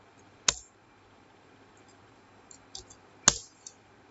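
Two sharp clicks of computer keys, about three seconds apart, with a few fainter ticks just before the second.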